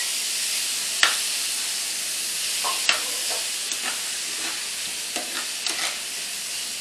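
Chopped bell peppers, tomatoes and onions sizzling in a nonstick frying pan while a spatula stirs them. The spatula gives a few sharp scrapes and taps against the pan, about a second in, near three seconds in, and again around five to six seconds in.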